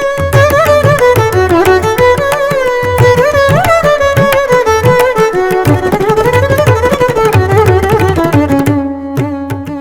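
Mridangam drumming a steady rhythm under a melody that slides up and down in pitch, in Carnatic style. Near the end the melody thins out, leaving the drum strokes over a held lower note.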